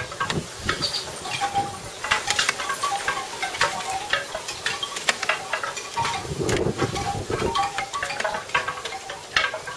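Wind chimes ringing irregularly in strong gusty wind, with a metal spoon clinking and scraping in a foil pan of cooking juices as a chicken is basted.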